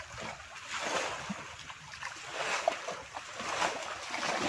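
Pond water splashing and sloshing around a man wading waist-deep and working a fishing net through it, heavier toward the end.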